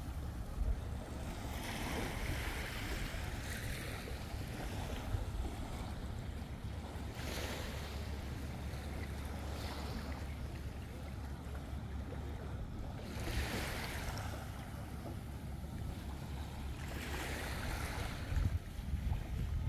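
Sea waves washing in slow swells of hiss every five or six seconds, over a steady low rumble.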